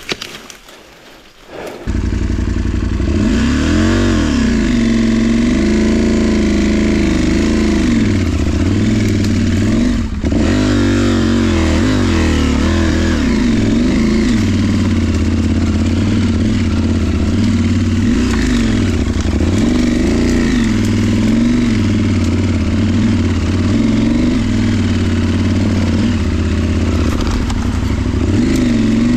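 KTM Adventure motorcycle's parallel-twin engine running under way, its revs rising and falling with throttle and gear changes. It comes in suddenly about two seconds in, and dips briefly about ten seconds in.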